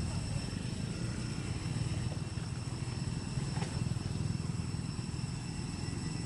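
Outdoor ambience: a steady low rumble with a steady high-pitched drone of several thin tones above it, and one faint tick about halfway through.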